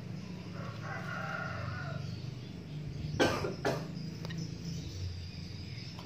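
A drawn-out animal call about half a second in, lasting just over a second. Then come two sharp knocks half a second apart, over a steady low hum.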